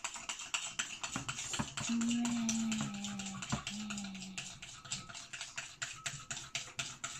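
Spoon clicking and scraping against a glass bowl, stirring glue and bicarbonate of soda into slime, about five or six quick clicks a second. A voice holds a long, low, slightly falling note about two seconds in, and a shorter one just before four seconds.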